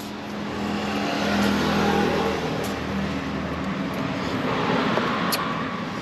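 A motor vehicle passing by, its engine and road noise swelling over the first two seconds and then slowly fading.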